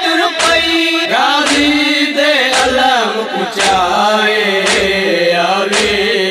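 A noha lament chanted in long, sliding notes over matam, with hands striking the chest in a steady beat about once a second.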